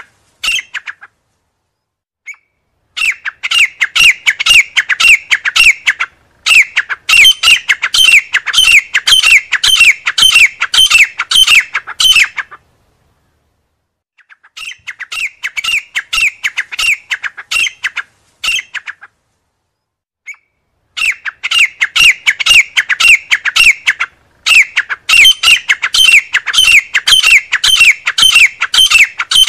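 Grey francolin calling: rapid series of loud, harsh, repeated notes in bouts of a few seconds, broken by pauses of one to two seconds.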